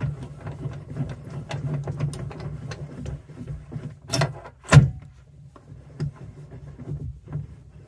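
Small metal clicks and scrapes as a drill chuck's Morse taper arbor is slid into a lathe's tailstock quill, with two sharp metal knocks a little past four seconds in, the second the loudest.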